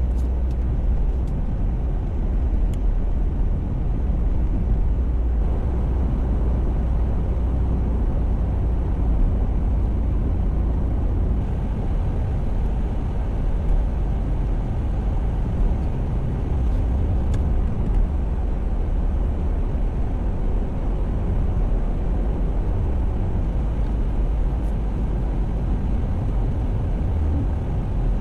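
Steady low rumble of a car on the move, road and engine noise without a break, with a few faint ticks.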